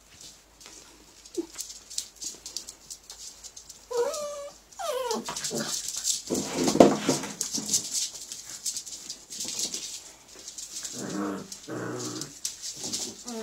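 Puppies play-fighting: short wavering whines about four and five seconds in, scuffling through the middle, and two growls near the end.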